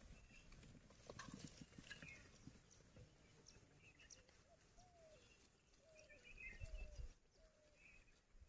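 Near silence with faint distant animal calls: a short series of four or five brief calls that rise and fall, about halfway through, along with faint high chirps.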